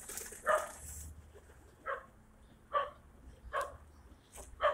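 A dog barking repeatedly in short single barks, about one a second, five times.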